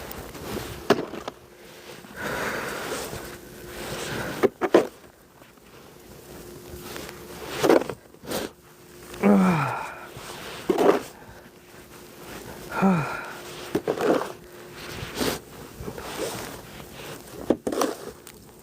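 Snow shovel scraping and pushing snow in irregular strokes every second or two, with two short, falling grunts of effort about halfway through.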